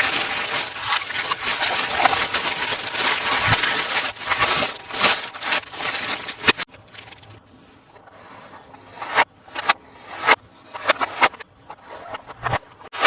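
Toy packaging being opened by hand: dense crinkling and rustling for about six seconds, then scattered sharp clicks and taps as the pieces are handled.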